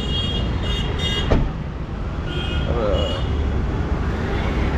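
Busy road traffic: a steady rumble of engines with several short, high-pitched vehicle horn beeps.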